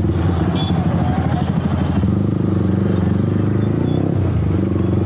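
Yamaha motorcycle engine running steadily at low riding speed, close up on a camera microphone mounted on the bike, its note shifting slightly about two seconds in. Street traffic noise is underneath.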